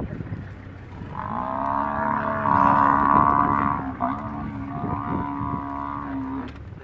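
Cape buffalo bellowing in distress while being attacked by lions: two long, steady bawls, the first starting about a second in and the second following a brief break about four seconds in.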